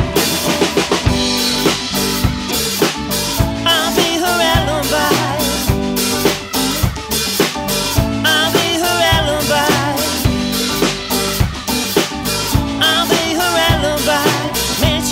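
Live band playing an upbeat funky song: a drum kit keeping a steady beat with kick and snare, an electric bass and an electric guitar, with a wavering lead melody over the top.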